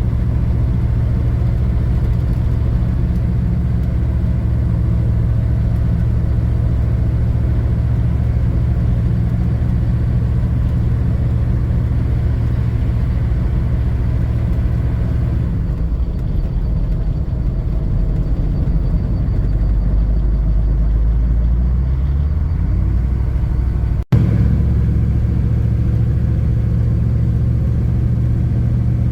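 1985 Chevrolet K5 Blazer's GM 6.2 diesel running at a steady cruise while driving. About halfway through the engine note drops lower for several seconds, then cuts back abruptly to the steady cruise sound.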